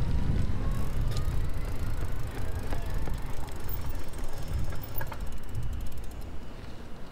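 Bicycle in motion, heard from the rider: a steady low rumble of wind on the microphone and tyres on pavement, with scattered clicks. For a couple of seconds in the middle the rear freewheel hub ticks rapidly as the rider coasts.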